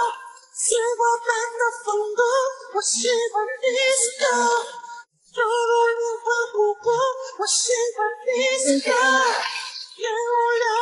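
A high-pitched voice singing a melody in short phrases, with no instruments heard; it stops briefly about five seconds in.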